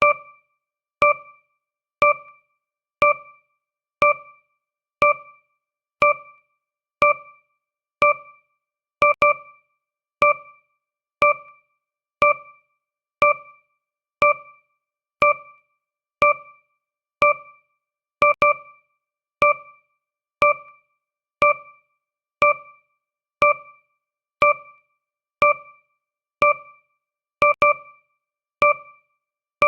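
A countdown timer's tick sound effect: a short electronic piano-like note about once a second, each fading quickly, with a few of the notes doubled.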